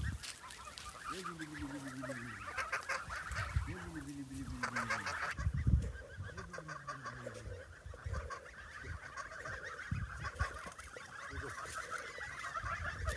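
A flock of month-old white domestic goslings calling continuously, a dense chorus of honks and chatter, with three lower calls that fall in pitch in the first half.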